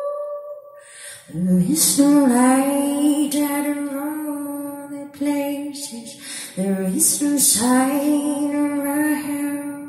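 A woman singing live into a microphone, amplified through the hall's PA. A note dies away at the start; then come two long phrases of held notes with pitch bends, the first beginning about a second in and the second about six and a half seconds in.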